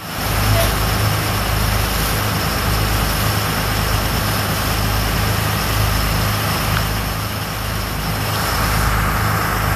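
Fishing boat's engine running steadily underway, a low drone, with water rushing along the hull and wind hiss over it.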